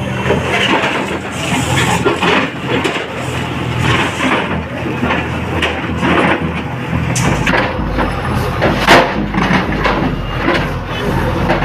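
Bulldozer's diesel engine running steadily, with a string of sharp cracks and knocks throughout as it breaks up debris. The loudest crack comes about nine seconds in.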